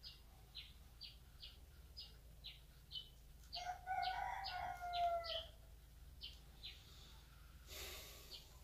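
A rooster crows once, faintly, in the middle, a single call of about two seconds that drops slightly at the end. Over it a small bird repeats a short high chirp about twice a second. Near the end there is a brief rush of noise.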